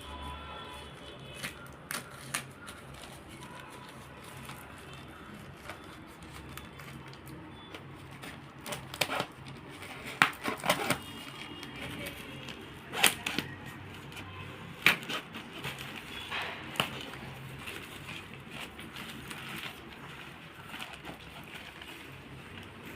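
Parcel packaging being opened by hand: scattered crinkles, tears and knocks, thickest from about nine to seventeen seconds in, over a steady low hum.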